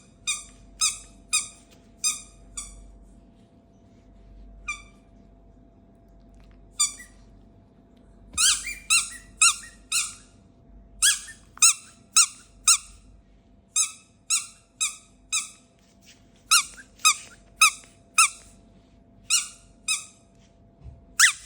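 Rubber squeaky dog toy squeezed over and over, giving short, high squeaks about two a second. There is a lull of only a couple of squeaks from about three to eight seconds in.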